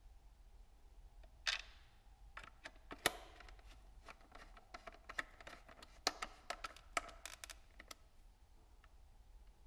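Irregular clicks and taps of a screwdriver working at the nuts and fittings of a plastic motorcycle mirror housing. Sharper knocks come about one and a half seconds in and near three seconds.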